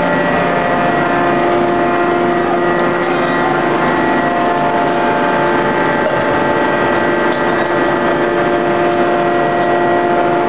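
Steady, loud drone of forge-shop machinery: a hum of several steady tones over an even noise, with no hammer blows.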